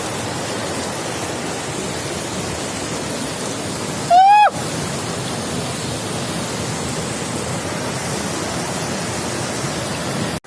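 Waterfall roaring as a steady, even rush of falling water. One short, loud, high call cuts across it about four seconds in.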